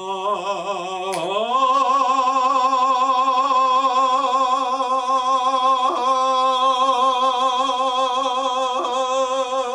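A man's voice sings one long held note with a steady vibrato, unaccompanied. About a second in it steps up in pitch, together with a single finger snap.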